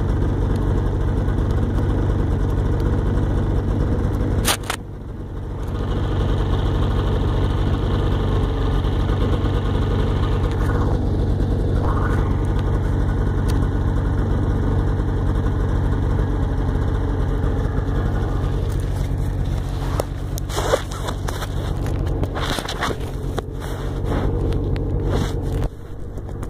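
Ski-Doo Tundra snowmobile engine running steadily, heard from the machine itself, with a brief dip about four and a half seconds in. Scattered clicks and crackles join it in the last several seconds.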